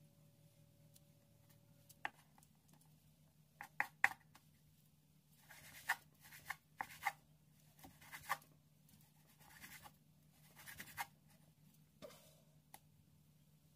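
Kitchen knife slicing raw beef on a wooden cutting board: a few sharp knocks, then a run of short scraping strokes as the blade draws through the meat and across the board. A faint steady hum lies underneath.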